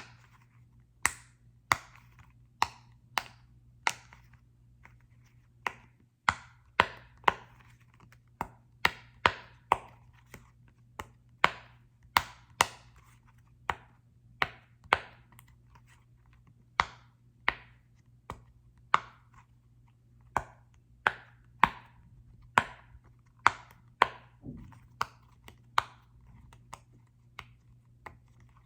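Sharp taps and clicks on a small soccer-ball-shaped object, made one at a time, roughly one to two a second at an uneven pace, over a faint low hum.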